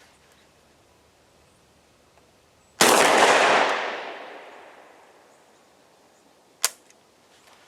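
A single 12-gauge shotgun blast from a Centurion BP12 about three seconds in, its report echoing and dying away over about two seconds, then one sharp click near the end.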